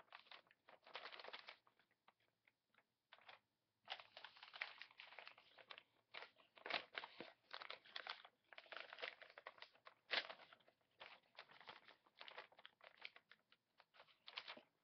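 A sheet of paper being handled, folded and creased by hand: irregular rustling and crinkling, with a brief lull about two seconds in.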